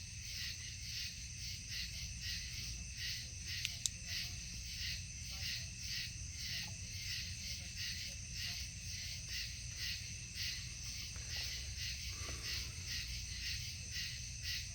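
Night insect chorus chirping in a steady pulsing rhythm, a few pulses a second, over a low steady rumble. A couple of sharp clicks come about four seconds in.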